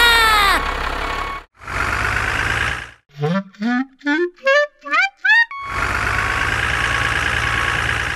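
Dubbed-in cartoon sound effects for toy vehicles: a steady engine-like running sound with a low hum, broken in the middle by a run of about seven short, woodwind-like notes, each sliding upward and climbing higher one after another, before the engine sound returns. A falling whistle tails off about half a second in.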